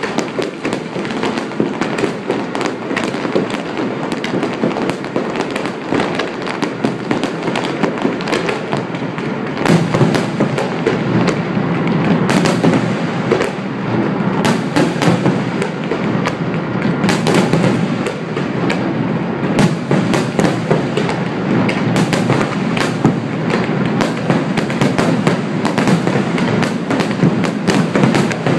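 Fireworks display: a dense, continuous barrage of bangs and crackling from many shells bursting close together, growing louder about ten seconds in.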